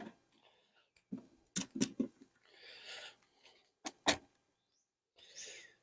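Sharp knocks and clicks with two short hissing scrapes as a beehive is worked open during an inspection: wooden frames and hive parts knocked and pried with a hive tool.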